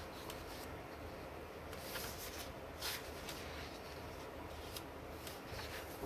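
Pages of a large book turned and smoothed by hand: faint paper rustling with a few short, crisp flicks as leaves flip over, over a low steady hum.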